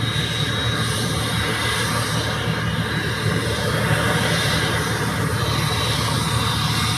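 PD-35 high-bypass turbofan engine running steadily under test: a continuous dense roar with a faint high whine.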